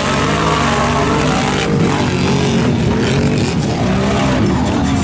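Off-road vehicle engine revving hard in the mud, its pitch rising and falling over and over.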